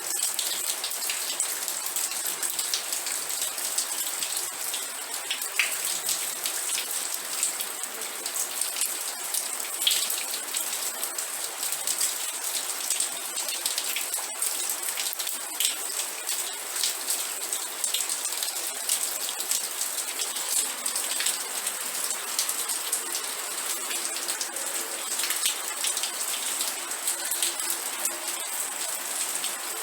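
Steady rain with many individual drops pattering on a surface, an even high hiss throughout.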